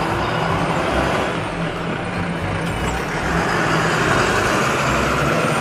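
Double-decker bus driving past on a road: engine running with steady road noise, a little louder in the second half.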